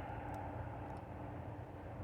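Steady, faint low engine drone with a constant hum.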